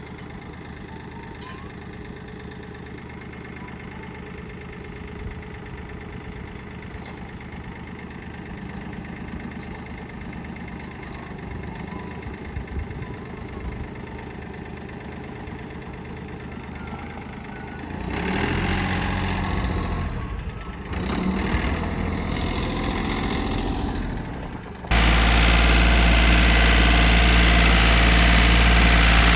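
An engine running steadily, growing louder and uneven after about 18 seconds. About 25 seconds in it cuts abruptly to a much louder, steady engine sound.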